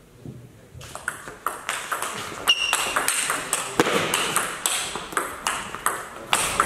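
A table tennis rally: the plastic ball clicking sharply off the rackets and the table in a quick, irregular run of knocks, several a second, starting about a second in after a short hush at the serve.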